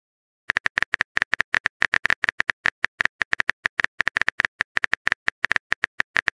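Rapid phone-keyboard typing clicks, a simulated key-tap sound effect, about seven short ticks a second, starting about half a second in and going on as a message is typed.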